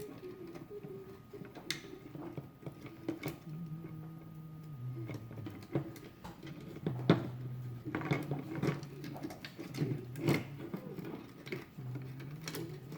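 Scattered clicks and taps from small plastic parts and wires being handled while working inside a Teddy Ruxpin toy, over a low hum. The sharpest clicks come about seven and ten seconds in.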